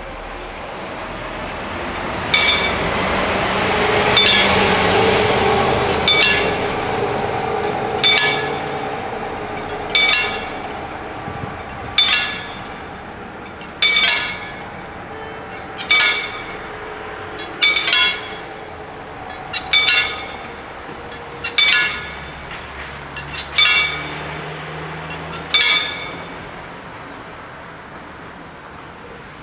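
Level-crossing warning bell striking slowly and evenly, about once every two seconds, roughly a dozen ringing strikes while the crossing barriers lower. A coach drives past at the start, loudest about four seconds in.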